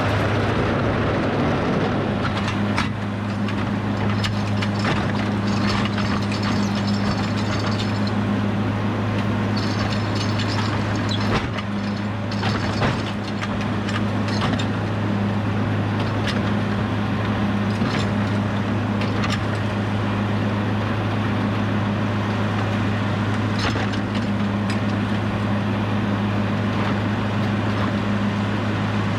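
An engine running steadily, with scattered knocks and clatter over it.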